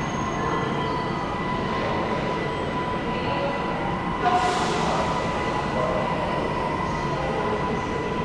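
Changsha Maglev Express medium-low-speed maglev train running: a steady noise with a thin steady whine, and a brief hiss about four seconds in.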